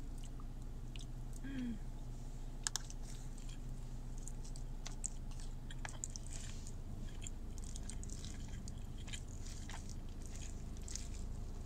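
A person chewing mouthfuls of a warmed pita bread sandwich, with many small wet clicks and smacks of the mouth. A steady low hum lies underneath.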